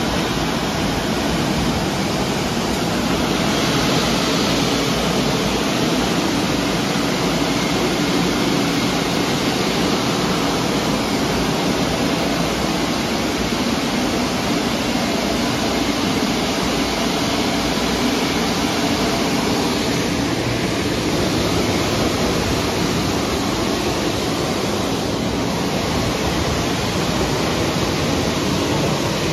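Istobal M'Start rollover car wash machine running over a car, a steady, even rushing noise with no pauses.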